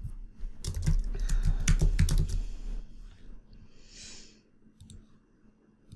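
Typing on a computer keyboard: a quick run of keystrokes over the first two and a half seconds, then a few faint clicks about five seconds in.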